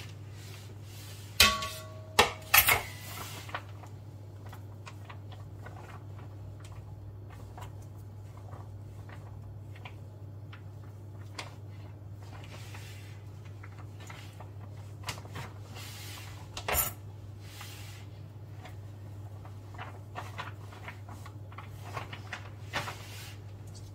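Kitchen dishes and utensils clinking and knocking now and then: a few loud knocks about two seconds in, the first with a short ring, and another sharp one near seventeen seconds. A steady low hum runs underneath.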